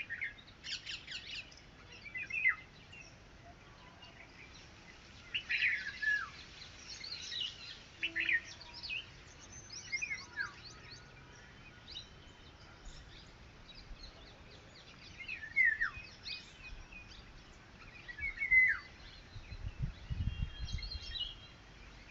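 Red-wattled lapwing calling: short, sharp falling notes in separate bursts every few seconds. A brief low rumble comes near the end.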